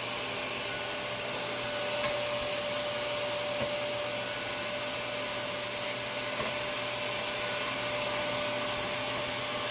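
Cordless handheld vacuum cleaner running steadily, a constant high whine over an even rush of air, as it sucks up torn scraps of paper towel.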